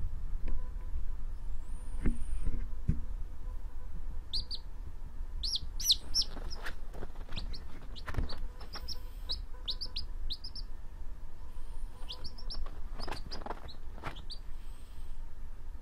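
Baby chick peeping: short, high cheeps in quick runs, starting about four seconds in, over a low steady rumble.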